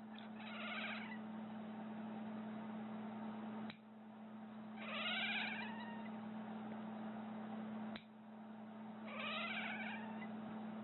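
A domestic cat meowing three times, each meow about a second long with a falling, wavering pitch, some four seconds apart. A sharp click comes before the second and third meows, over a steady low hum.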